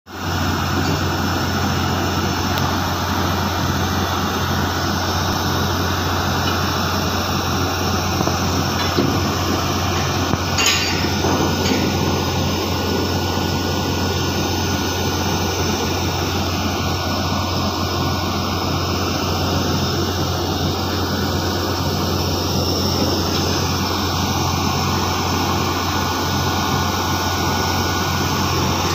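Heavy diesel machinery running steadily with a deep, constant hum. There is one brief knock about ten seconds in.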